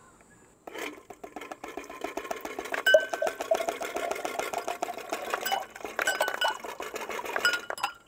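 Cold water pouring from an insulated jug into a tall glass of ice cubes: a steady splashing stream that starts about a second in and stops just before the end, with ice cubes clinking against the glass and short glassy rings.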